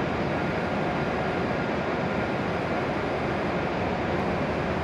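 Steady whir of an E7 series shinkansen standing at the platform with its onboard equipment running, a constant noise with a faint high whine in it.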